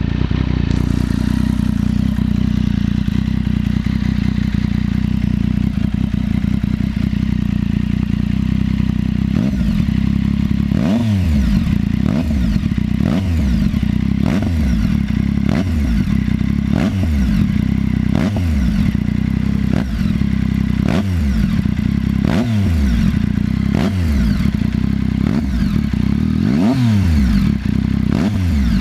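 Motorcycle engine idling, with a weird noise that the owner suspects could be a cam chain tensioner problem. About a third of the way in the throttle starts being blipped about once a second, the revs rising and falling each time.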